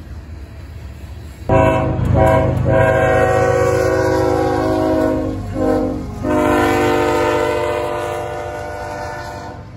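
CSX diesel locomotive air horn sounding a multi-note chord in several blasts. Two short breaks come early, there is a brief dip in the middle, and a long final blast slowly fades, all over the low rumble of the passing locomotives.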